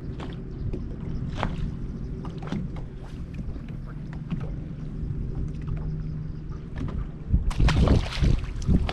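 A boat motor's steady low hum with scattered light clicks and knocks, then a louder stretch of rushing, splashing noise starting about seven seconds in.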